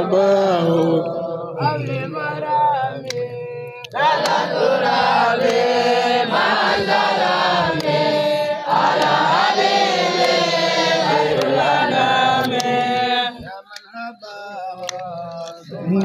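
A large group of boys chanting together in unison, with a thinner, lighter voice part for the first few seconds and again near the end.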